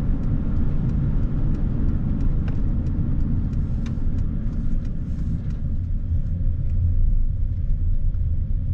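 Road noise from a vehicle driving, heard from inside the cab: a steady low rumble with light ticks scattered through the middle as it turns off the highway onto a dirt lot.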